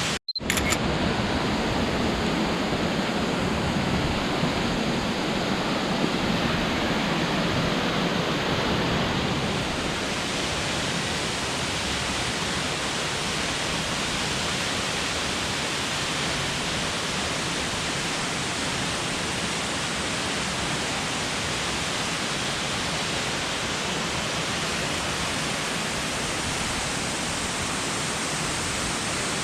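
Steady rush of a waterfall, an even wash of falling-water noise. There is a brief dropout just after the start and a slight change in tone about ten seconds in.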